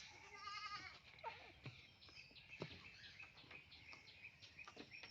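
A goat bleating once, faintly: a short wavering bleat about half a second in.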